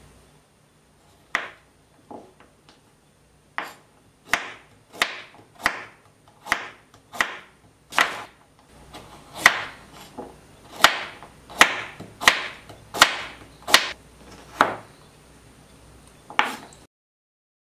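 Chef's knife chopping carrot into thin strips on a wooden cutting board: a run of sharp knocks as the blade meets the board. The knocks are sparse for the first few seconds, then come about three every two seconds, and stop shortly before the end.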